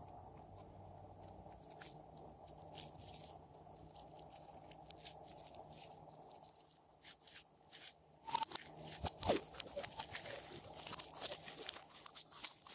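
Hands squishing and kneading glossy slime: sparse sticky clicks at first, turning into dense, irregular crackling and popping from about eight seconds in.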